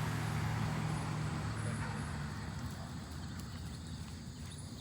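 A passing vehicle's engine hum, fading out about halfway through.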